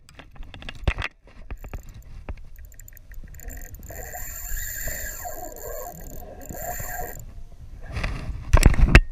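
Shimano Sustain spinning reel whirring in a high, steady whine for about three seconds, with a short break, as line runs under the load of a hooked fish on a bent rod. A louder rush of noise near the end.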